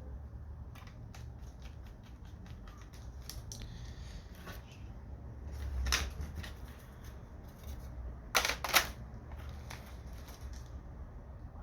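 Light clicks and taps of hands handling a laptop and its parts, with a louder knock about six seconds in and two sharp clicks close together past eight seconds, over a low steady hum.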